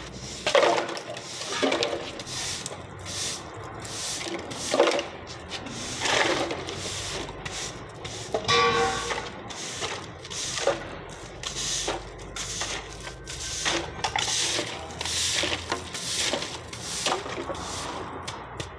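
Broom sweeping a shop floor in repeated brisk strokes, irregularly spaced.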